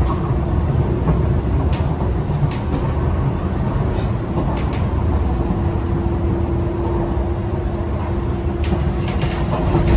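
St. Louis MetroLink light rail car running, heard from inside: a steady low rumble of wheels on rail with scattered sharp clicks. A steady hum comes in about halfway through.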